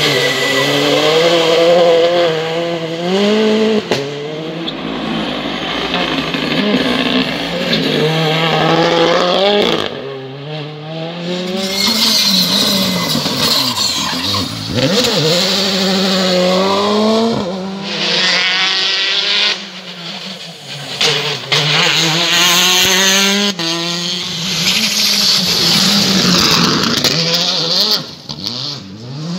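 R5 rally cars, each a 1.6-litre turbocharged four-cylinder, revving hard as they accelerate through corners one after another, with tyre squeal. The engine pitch climbs in sweeps and drops at each gear change, and the sound cuts abruptly several times between passes.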